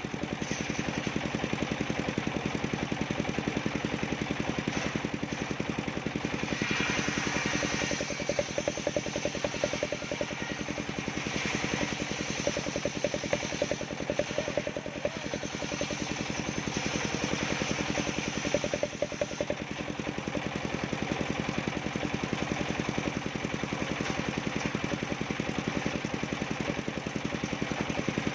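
Engine of a homemade circular saw rig running steadily, while the spinning blade cuts bendo wood, with brighter, hissier stretches about a quarter and about two-fifths of the way in.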